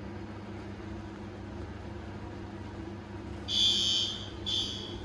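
Fire alarm horn sounding two short, loud, high-pitched buzzing blasts about three and a half seconds in, the system going into alarm from a heat detector under test. Before that, only a steady low room hum.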